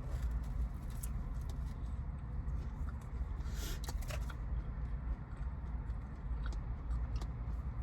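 Steady low rumble of an idling car heard from inside the cabin, with a few soft clicks and a brief rustle near the middle as someone eats.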